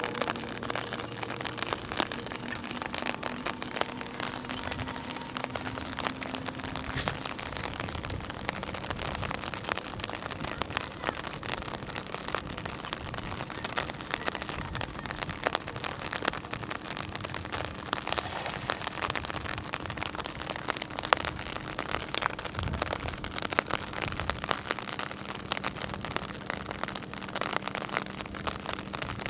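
Light rain pattering steadily, a dense crackle of small drop hits.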